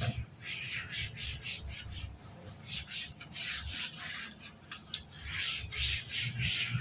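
Scrubbing a wet tile floor coated with cleaning paste: a string of short, raspy swishing strokes at an uneven pace, with soft low bumps from the handling.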